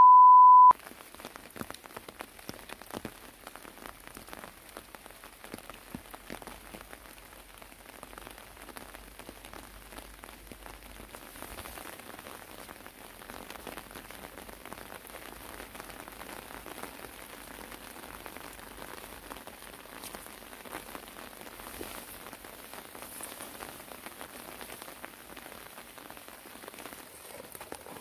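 A loud steady test-tone beep from a colour-bars test card cuts off under a second in. Then light rain patters steadily, a dense fine crackle of drops.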